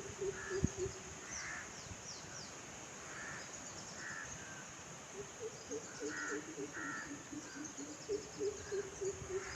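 Birds calling in the background: repeated short harsh caws, scattered through the stretch, with a few quick high chirps near the start.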